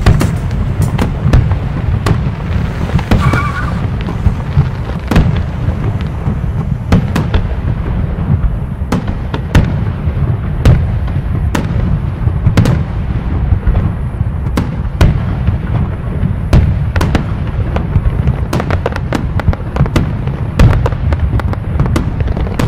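Aerial fireworks display: an irregular string of sharp bangs and crackle, about one or two a second, over a steady low rumble.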